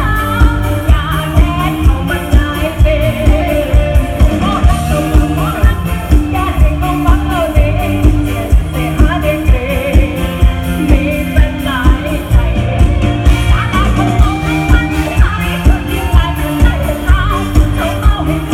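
Live Thai luk thung band playing with a singer over a steady drum beat of about two beats a second.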